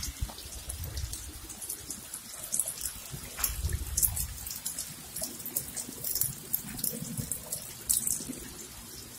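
Spring water running from a fountain's metal spout in a thin stream and splashing into the stone trough below, with a steady trickle and small splashes.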